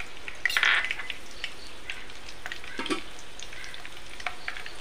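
Green chillies frying in hot coconut oil in a pan: a steady sizzle dotted with scattered pops and crackles, with a louder burst of spitting about half a second in.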